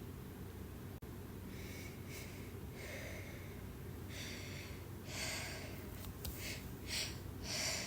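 A person's short, breathy inhales and gasps, about eight of them, coming closer together in the second half: the hitching build-up before a sneeze.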